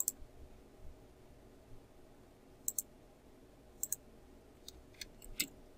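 Computer mouse button clicks, faint: a single click, two quick double clicks, then a short run of four clicks near the end, over a low steady room hum.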